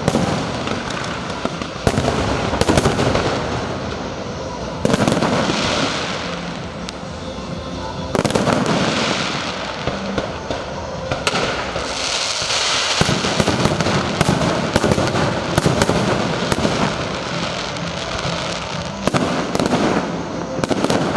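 Fireworks display: aerial shells bursting in a continuous barrage, with a sharp loud bang every few seconds over a dense run of smaller pops.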